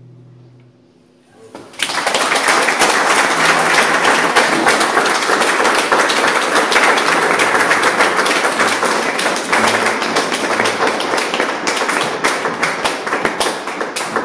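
The last chord of a nylon-string classical guitar rings and fades away, then, about two seconds in, a small audience breaks into loud, steady applause.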